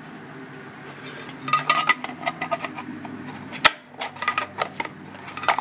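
Aluminium enclosure panels sliding together along their groove and key: metal scraping and light clinking, with a sharp click about three and a half seconds in.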